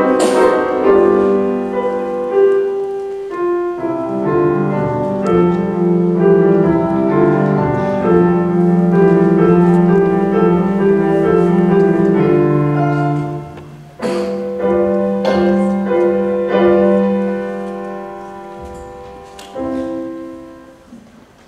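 Solo grand piano (a Bohemia) playing a slow classical piece in sustained chords, with a few strong strikes about two-thirds of the way in. It grows quieter toward the end and closes on a final chord that rings away.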